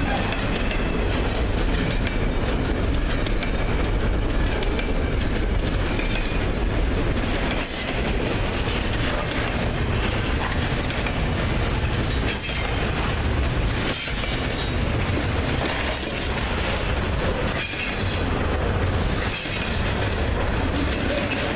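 Norfolk Southern double-stack intermodal freight train rolling past: a steady rumble of steel wheels on rail, with brief dips every few seconds as the cars go by and an occasional faint, high wheel squeal.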